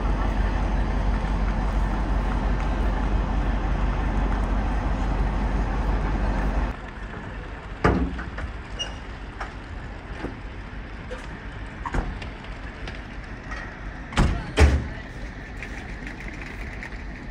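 Steady low rumble of an idling diesel locomotive. About seven seconds in it cuts off abruptly to a quieter open-air ambience with a few sharp knocks, the loudest two close together near the end.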